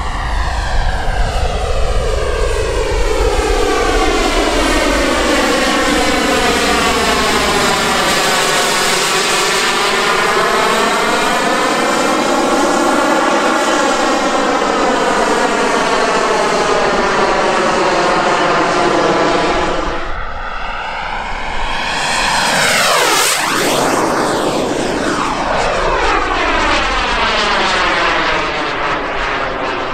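Turbine engines of large RC Eurofighter Typhoon model jets flying past, a loud steady jet whine and rush whose tone sweeps up and down as they pass. About two-thirds of the way through the sound cuts abruptly, and a few seconds later a fast low pass brings a sharp drop in pitch.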